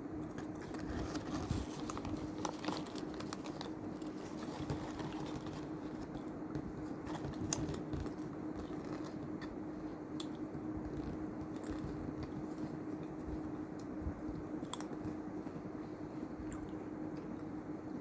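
A person chewing and crunching a crunchy snack close to the microphone, with scattered small crunches and clicks. A steady low hum runs underneath.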